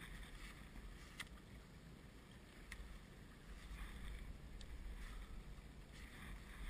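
Faint sounds of a small boat on open water: a low steady rumble and soft water noise, with a few light clicks.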